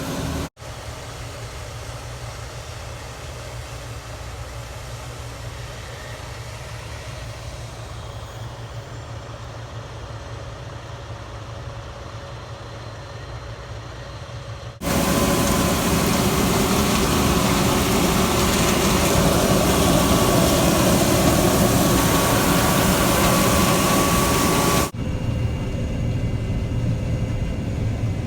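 Harvest machinery engines running, heard in separate edited clips. A steady low engine rumble comes first. About fifteen seconds in it cuts to a much louder, noisier machine with a steady whine, and near the end it cuts back to a quieter engine.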